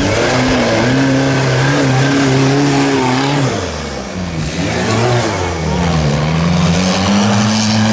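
Off-road vehicle engines revving hard while driving through deep mud: held high at first, dropping off about three and a half seconds in, then climbing again toward the end.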